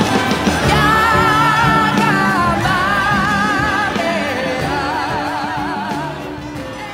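Live ensemble music with singing, voices holding notes with vibrato over instrumental backing, gradually fading toward the end.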